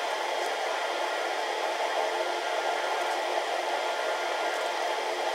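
Steady, even rushing noise like a fan or air blower running, with no change in level.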